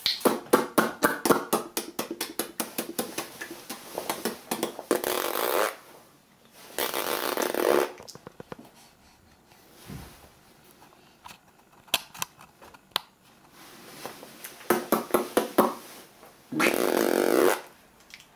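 Wet mouth noises: rapid lip smacking at first, then blown raspberries in separate bursts of about a second each.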